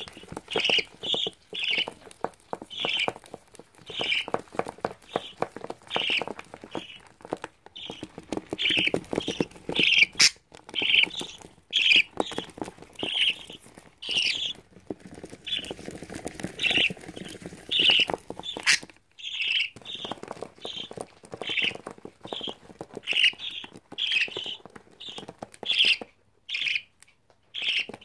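Albino baby budgerigars calling with short squawks, about one or two a second, over a steady clatter of claws and wings scratching and tapping on a plastic basin.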